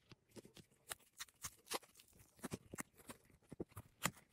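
Small hard cured-resin cat-paw pieces being handled: an irregular run of light clicks and taps as they knock against each other and the tabletop, with the loudest click about four seconds in.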